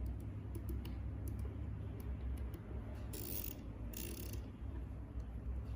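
Faint small clicks and handling noise from a handheld wireless CNC hand-wheel pendant, with two short hisses about three and four seconds in, over a low steady hum.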